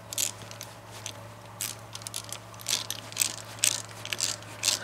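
Socket ratchet clicking in short, irregular runs as the magneto armature's mounting bolts are tightened into the aluminium engine block.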